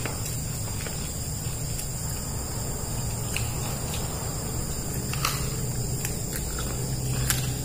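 Steady chorus of crickets, with a low steady hum underneath and a few light clicks.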